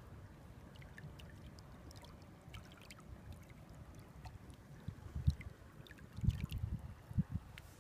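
Faint trickling and lapping of shallow water, with small scattered ticks. About five seconds in, low gusts of wind start buffeting the microphone, and these are the loudest sound.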